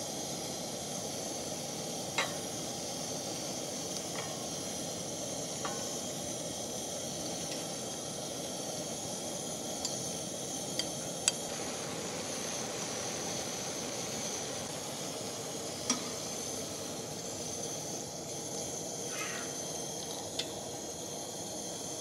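Shrimp, mushrooms and tomatoes frying in oil in a pan over an MSR WhisperLite liquid-fuel camp stove: a steady sizzle and hiss, with light clicks of chopsticks against the pan and plate scattered through it as the food is stirred.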